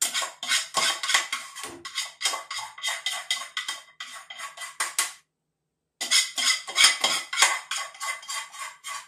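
Metal spoon scraping and knocking against a metal cooking pan, a quick run of clinks about four a second, each with a ringing note from the pan, as thick ginger pachadi is scraped out into a cup. The clinks stop for under a second about five seconds in, then carry on.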